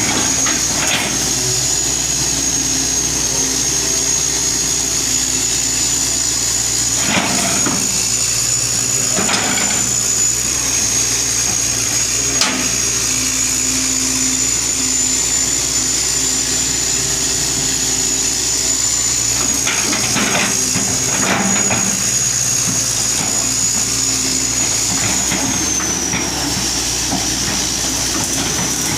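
1983 Hitachi excavator's diesel engine running steadily with a steady high whine over it, and a few sharp clunks now and then as the machine works. The whine drops slightly in pitch near the end.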